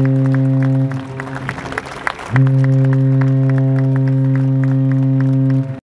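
A ship's horn blowing a deep steady note over applause. The horn breaks off about a second in for about a second and a half, sounds again, and cuts off suddenly near the end.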